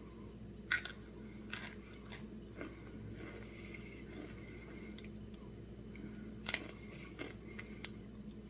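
A person biting and chewing a thin piece of frozen food close to the microphone, with about nine sharp crisp crunches spread irregularly between quieter chewing.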